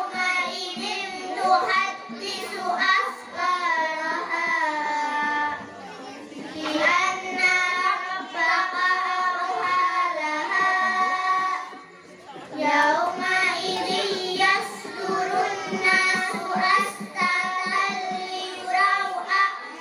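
A group of young girls reciting short surahs of the Quran in unison, a melodic chanted recitation in phrases, with brief pauses about six and twelve seconds in.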